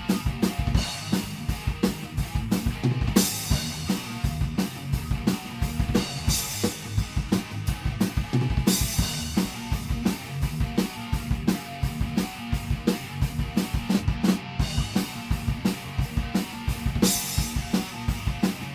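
Rock music led by a drum kit: fast bass drum beats and snare hits, with cymbal crashes coming back every few seconds.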